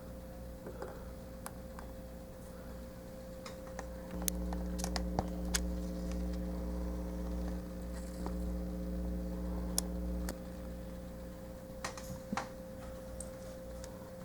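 Scattered light clicks and taps from a small plastic toy figure being handled, over a steady low electrical hum that gets louder for several seconds in the middle.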